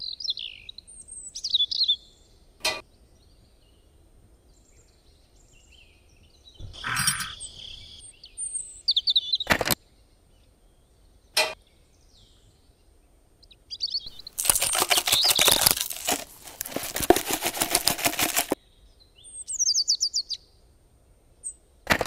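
Small birds chirping in short bursts, with a few sharp clicks. Midway through comes about four seconds of dense rustling as small green seeds are poured into a small plastic seed hopper.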